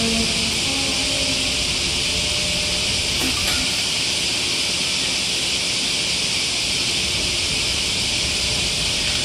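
A steady, even high hiss with no clear events in it.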